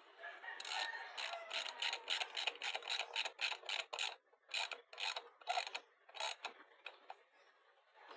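Ratchet wrench clicking in quick runs, about three to four clicks a second, as a bolt is turned down during pressure washer assembly; the clicking thins to a few scattered clicks near the end.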